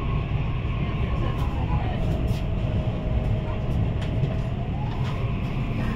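Steady low rumble of a CR400AF-Z Fuxing high-speed train running, heard from inside the passenger carriage. A faint whine slides down in pitch about two seconds in and rises back up near the end.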